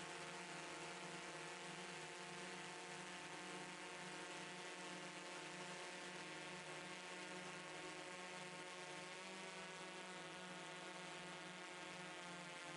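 Electric motors and propellers of a DJI S900 hexacopter droning steadily, heard from the camera on board, with the pitch wavering briefly about nine seconds in as the motor speeds shift.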